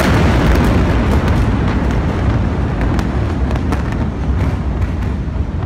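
Deep rumble of a huge explosion rolling on after its blast has hit, with scattered sharp cracks and pops through it, easing off slowly.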